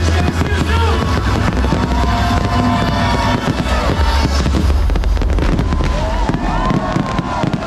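Fireworks crackling and popping over loud electronic dance music with a heavy bass, which thins out near the end.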